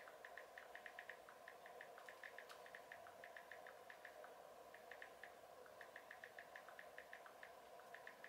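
Faint keyboard clicks of a smartphone as someone types on it with their thumbs, in quick runs of several clicks a second with short pauses, over a low steady room hum.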